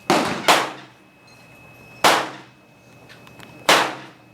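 Four gunshots at an outdoor shooting range: two in quick succession at the start, one about two seconds in and one near the end, each followed by a short echo.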